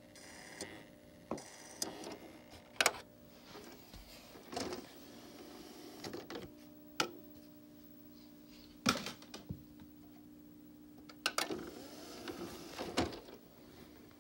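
Old DVD player's disc drive working on a disc: a faint steady motor hum, stronger in the second half, with irregular sharp clicks and knocks from the mechanism.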